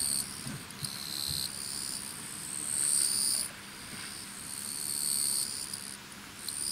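Insects chirring in high-pitched trills that run for a second or two at a time, stopping and starting and overlapping.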